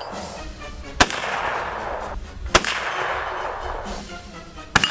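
Three gunshots from a firearm aimed at steel plate targets, about one and a half to two seconds apart, the last near the end. Each shot rolls away in an echo lasting about a second.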